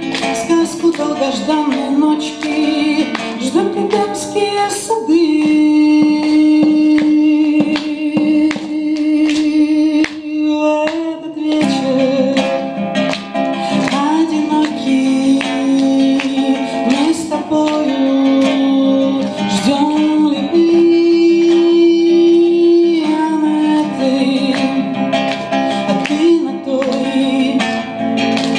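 A woman singing to her own strummed classical guitar, with several long held notes in the melody.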